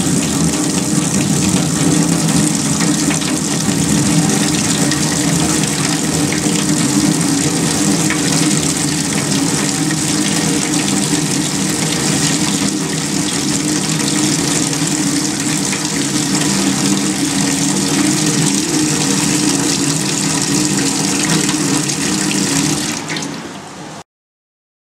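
Water from a tap pouring steadily into a stainless steel sink and splashing down the drain, dying away near the end as the flow stops.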